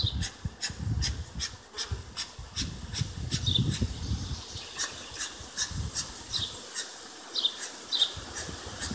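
Bee smoker's bellows being pumped in a quick run of puffs, about three a second at first and sparser later, over an open hive with honeybees buzzing.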